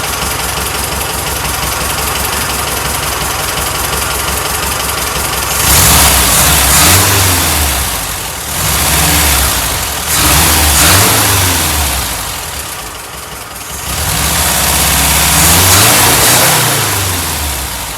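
Air-cooled VW Type 4 flat-four engine running on a new replacement carburetor: it idles steadily for about five seconds, then is revved up and let back down to idle several times.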